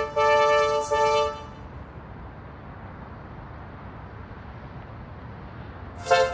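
Car horn honking: two short two-note blasts in the first second and a half, then a steady low hiss, then another blast near the end.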